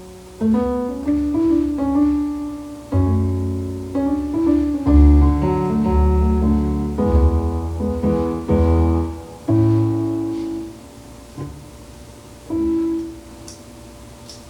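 Piano music: a slow run of chords over low bass notes. It thins out after about ten seconds, leaving one last soft chord near the end.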